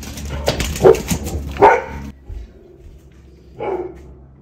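Labrador retriever barking at a cat, about three single barks spaced a second or more apart, the first two over a rush of scuffling noise.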